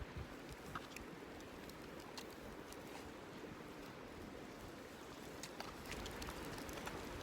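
Faint crackling of a wood campfire: scattered sharp pops over a steady hiss, with a low wind rumble on the microphone.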